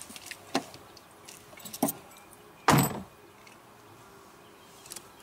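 A few light clicks, then one loud thump about two and a half seconds in, near a parked SUV.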